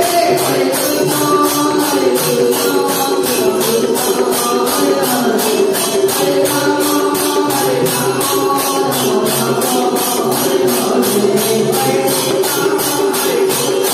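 Devotional bhajan music: a melody over sustained low tones, with a steady jingling percussion beat of about three strokes a second.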